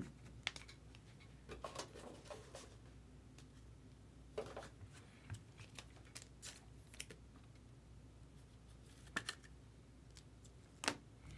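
Faint, scattered light clicks and brief rustles of small objects being handled at a desk, with a couple of sharper clicks near the end.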